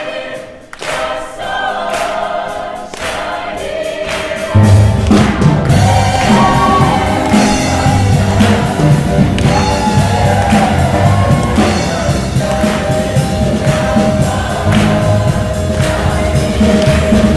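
Mixed choir singing. About four and a half seconds in, a louder accompaniment with a deep bass line comes in under the voices.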